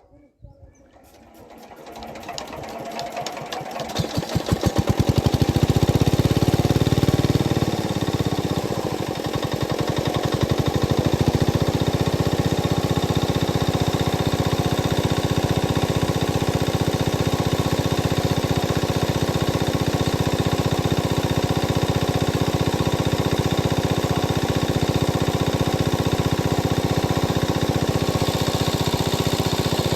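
A small engine starts up about a second in, builds over several seconds, dips briefly around eight to ten seconds in, then runs steadily with a fast, even chugging.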